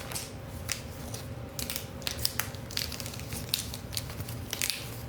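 Irregular small clicks and crinkling rustles of something being handled close by, over a faint steady low hum.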